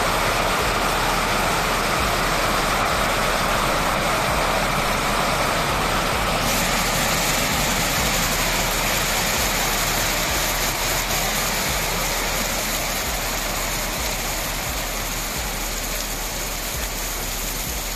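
Heavy hail falling, hailstones pelting the pavement and roofs in a dense, steady hiss that turns brighter about six seconds in.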